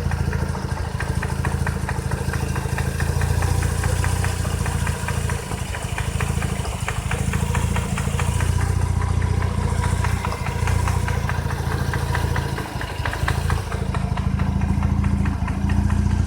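Mazda RX-8's two-rotor rotary engine running with a knocking: a steady low hum with a fast, even ticking on top. The owner says the car starts and drives fine and reports this knock as a fault that gets louder with throttle.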